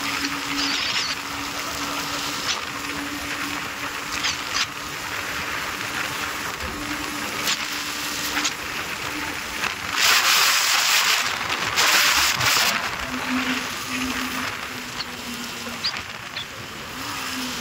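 Wind rushing over the microphone of a motorcycle ridden at speed, with a faint, steady engine drone underneath that comes and goes. Two strong gusts of wind noise come about ten and twelve seconds in.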